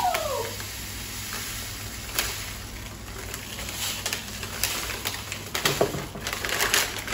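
Couscous pouring from a plastic packet into a glass jar: a steady hiss of fine grains, with the plastic packet crinkling in sharp bursts near the end.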